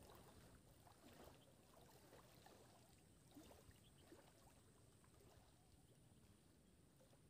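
Near silence, with faint soft handling sounds of hands kneading dough fishing bait into balls.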